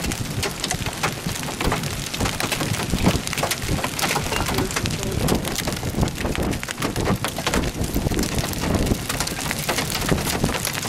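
Large hail pelting down: a dense, irregular clatter of many sharp hailstone hits.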